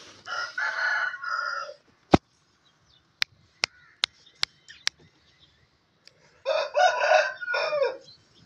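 Aseel rooster crowing twice, each crow about a second and a half long, with a long pause between them. In the pause come a loud sharp click and then a run of five quicker clicks.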